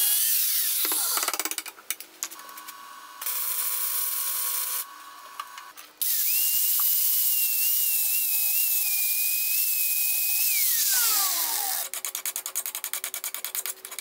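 Angle grinder cutting and grinding steel in several runs, its whine falling away as it spins down about eleven seconds in. Near the end, a file rasps over the steel in rapid strokes.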